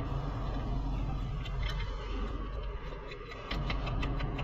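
A wrench working a fastener at a car's front ball joint and lower control arm, giving runs of light, quick metal clicks over a steady low shop hum.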